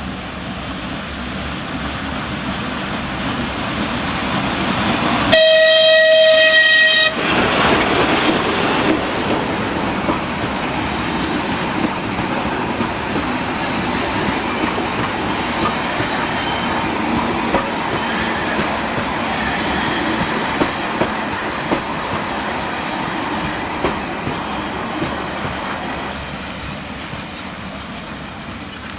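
A diesel-hauled narrow-gauge children's railway train approaches and passes close by, growing louder. A few seconds in, the locomotive sounds one horn blast of about a second and a half. The passenger coaches then roll past with wheel clicks over the rail joints, and the sound fades near the end.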